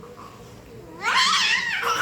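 A young child's loud, high-pitched squeal with a wavering pitch, starting about halfway through.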